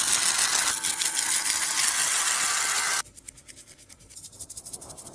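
Dense, scratchy crinkling of a tape-and-plastic taba squishy being squeezed by hand, cutting off suddenly about three seconds in to a much quieter run of fine crackles and clicks.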